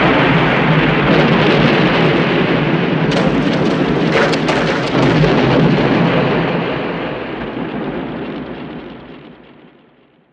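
A long explosion sound effect: a continuous rumble from the blast, swelling again about three seconds in with a few sharp cracks, then dying away slowly over the last few seconds.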